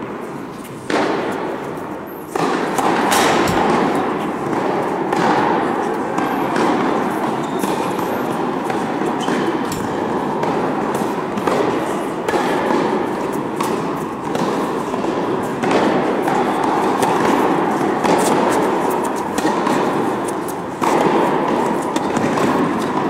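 Tennis rally in a large indoor hall: sharp racket strikes and ball bounces every second or so, echoing, over a steady background noise of the hall.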